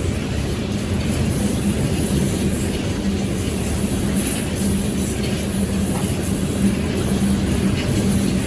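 CSX freight train rolling past at speed: a steady rumble of wheels on the rails, with a steady hum running through it.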